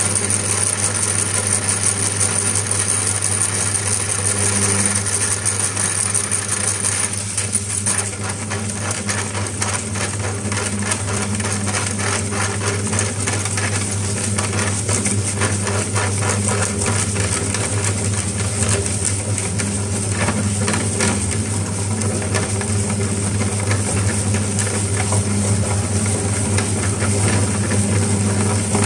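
Electric meat grinder motor running with a steady hum while sponges are fed through it. From about eight seconds in, dense irregular crackling and clicking of the sponge being chewed through the grinder.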